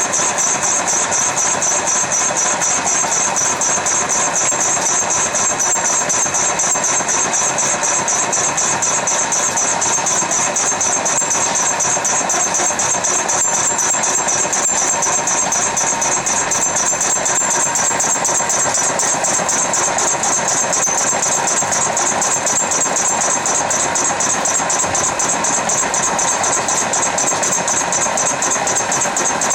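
CNC micro mill's 800 W water-cooled spindle running steadily while machining, a constant high-pitched whine over a dense mechanical noise with a fast, even pulsing.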